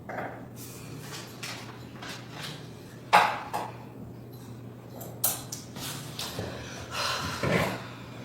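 Scattered light knocks and handling noises, the loudest a sharp knock about three seconds in, over a steady low hum.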